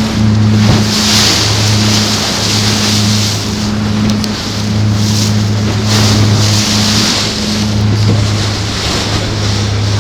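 A motorboat's engine running steadily with a low, even drone, over rushing water and wind buffeting the microphone.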